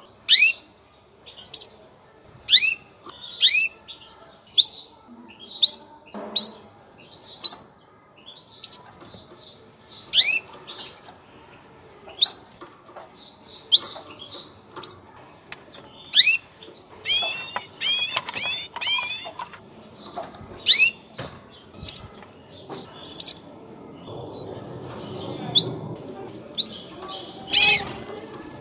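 Female canary giving its mating call: short, sharp downward-sweeping chirps repeated about once a second, with a quick run of several calls together about two-thirds of the way in. A brief burst of noise sounds near the end.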